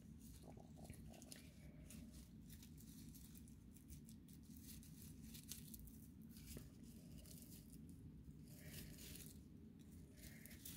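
Faint rustling of raffia strands handled and pulled into a bow by hand, over a low steady room hum.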